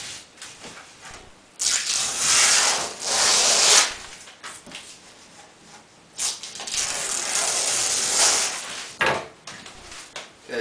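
Adhesive vinyl wrap being peeled from its backing and pressed down by hand onto a wooden cornhole board: two long stretches of papery hiss, the first starting about one and a half seconds in, the second about six seconds in.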